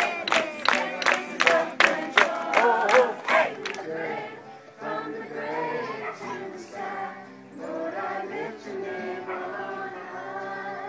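A group of children sing and chant a camp song, with sharp rhythmic claps about two and a half times a second. About four seconds in, the clapping stops and held sung or musical notes carry on.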